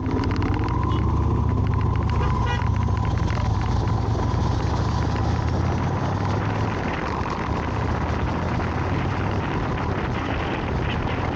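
Wind noise buffeting an action camera's built-in microphone on a moving 2014 Victory Vision Tour motorcycle, a steady rumbling rush that drowns out the engine and road sound.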